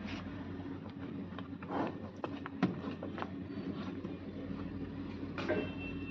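Water buffalo's hooves scuffing and stamping on dry, dusty dirt as it shifts about, with scattered knocks, over a steady low mechanical hum.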